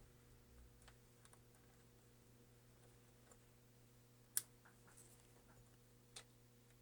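Near silence with a few faint, small clicks and taps of a plastic pry tool working a cable connector loose inside a MacBook Pro. The sharpest click comes a little past four seconds in, and another comes about six seconds in.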